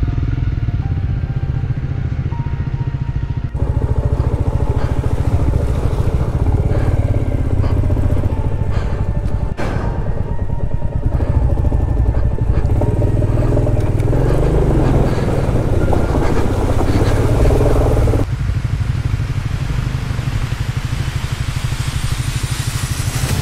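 Royal Enfield Classic 350's single-cylinder engine running as the motorcycle rides through a shallow river crossing, with water splashing around the wheels.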